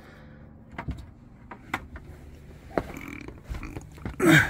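Light clicks and knocks of clear plastic tubing and fittings being handled, over a faint steady low hum. Near the end comes a brief loud low grunt that falls in pitch.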